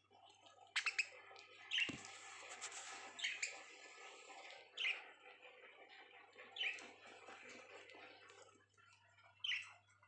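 Budgerigars chirping: short, sharp calls about every second and a half, with a cluster of sharp clicks about a second in. A faint steady low hum runs underneath.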